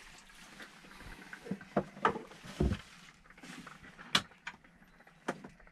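Scattered light clicks and knocks with faint rustling, the sounds of someone moving about inside a camper and handling the camera.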